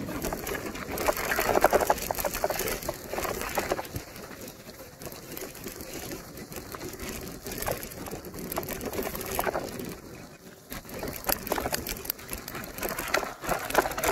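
Bicycle tyres crunching and rattling over a wet, stony dirt track in the rain, the noise swelling and easing as the surface changes, loudest in a stretch early on and again near the end.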